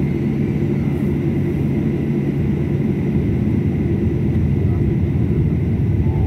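Steady low rumble of an airliner taxiing, heard from inside the cabin, with a faint steady high whine. It grows slightly louder in the second half.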